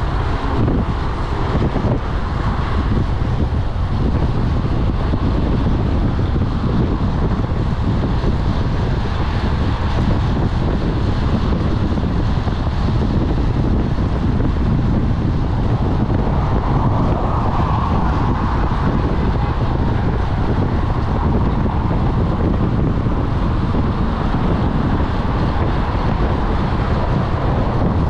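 Steady, loud wind buffeting the microphone of a camera on a road bike moving at about 40 km/h.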